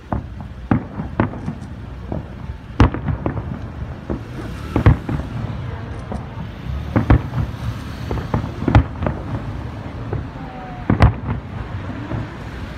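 Aerial fireworks shells bursting in a rapid, irregular string of sharp bangs over a continuous low rumble.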